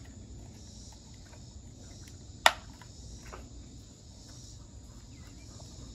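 Steady high chirring of insects in the background, with one sharp click about two and a half seconds in.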